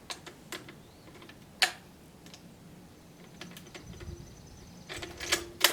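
Metal clicks from a Dutch Beaumont rifle's action as its magazine cutoff lever is worked: a few separate clicks, the loudest about a second and a half in, then a quick run of clicks near the end. The cutoff will not stay engaged and snaps back.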